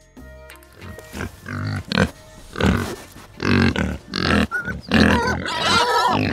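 Pigs grunting: a run of short grunts that start about a second in and come faster and louder, with higher squealing cries near the end.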